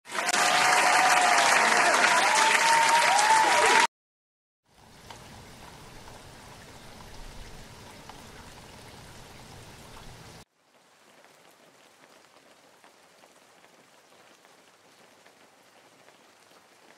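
Hot oil sizzling as frozen chicken rolls and bite samosas deep-fry, in two stretches, the second quieter. Before them comes a louder hiss of about four seconds with several short rising-and-falling squeals over it.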